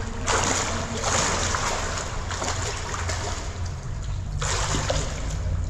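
Water splashing and sloshing as hands grope through shallow water, a steady run of splashing that eases off about four seconds in.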